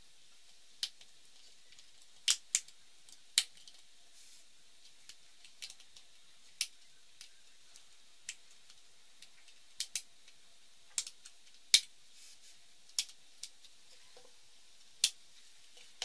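The tabs of a Dell Inspiron 13 7000 (7368) laptop's base cover snap loose one after another as a plastic scribe pries around the edge. About fourteen sharp clicks come at uneven intervals over a faint hiss.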